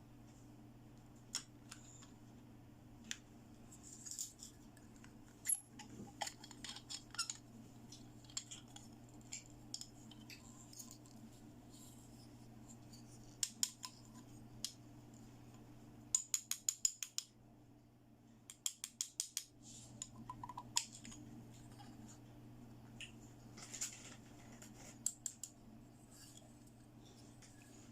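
Small plastic toy pieces clicking and tapping as they are handled, with two quick runs of rapid clicks a little past the middle. A steady low hum runs underneath.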